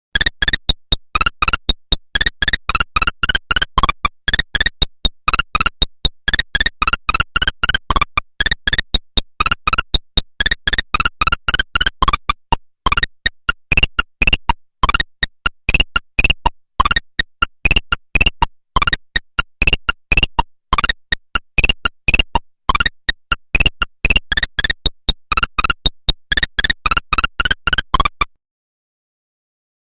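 Nokia 1100 mobile phone playing one of its monophonic ringtones: a quick, single-line melody of short beeping notes, repeated in phrases, which stops about 28 seconds in.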